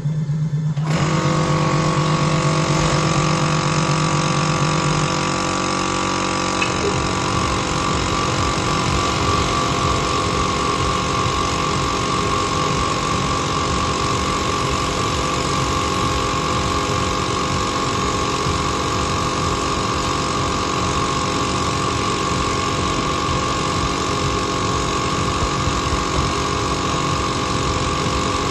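Pertici Univer 330 double mitre saw's motors running steadily with no load, a constant whine over a hum.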